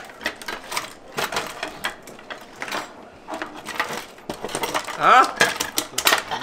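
Cutlery and kitchen utensils clinking and rattling as a hand rummages through a drawer of metal and plastic spoons, forks and tools. A short burst of voice about five seconds in is the loudest moment.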